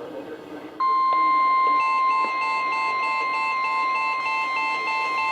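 NOAA Weather Radio 1050 Hz warning alert tone, broadcast ahead of a Severe Thunderstorm Warning, starting suddenly about a second in and holding steady. About a second later a weather alert radio receiver's own alarm joins, pulsing at about three beeps a second.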